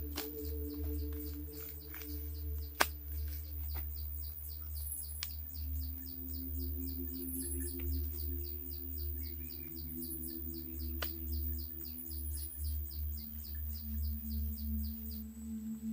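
Jungle ambience: a bird or insect chirping in a fast, even ticking rhythm, about five a second, with a few higher chirps, over a low steady hum. A few sharp clicks come in the first few seconds.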